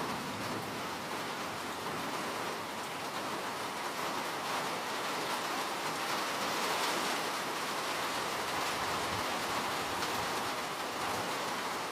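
Steady rainfall: an even hiss of rain falling on a surface, with fine pattering of drops.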